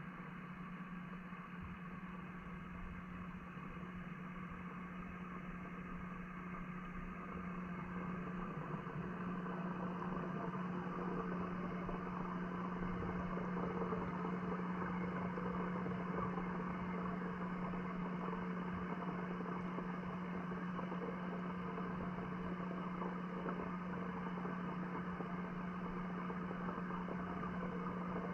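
Steady low hum under a muffled wash of noise, heard underwater in a pond; it grows a little louder about eight to ten seconds in.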